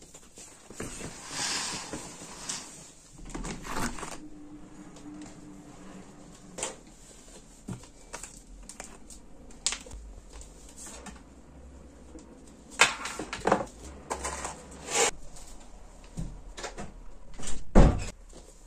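Scattered handling sounds of household tidying: a lace curtain rustling about a second in, then clicks and knocks of small objects being picked up and set down on a desk, with the loudest knock near the end.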